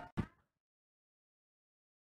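Dead silence after a brief faint sound at the very start.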